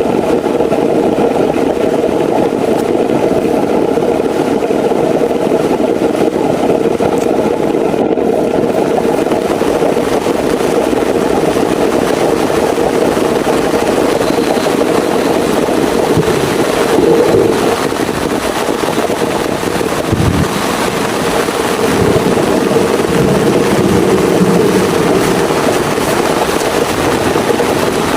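Heavy rain falling steadily, a dense, unbroken rush of sound.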